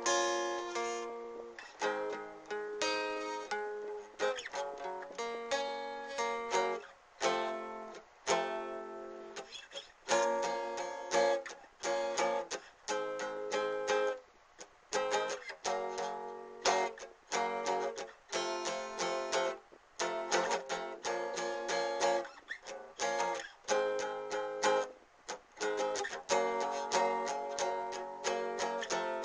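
Guitar playing an instrumental piece, with plucked notes and strummed chords in short phrases broken by brief gaps.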